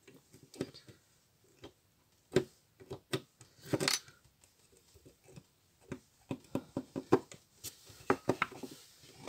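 Plastic electronics cover of a BMW N53 throttle body being handled against its housing: scattered clicks and taps, with a brief louder rattle about four seconds in and a quicker run of clicks over the last three seconds.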